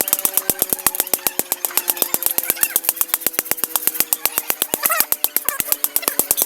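Rapid, evenly spaced hammer blows on steel during knife forging, about ten strikes a second, with a steady tone running underneath.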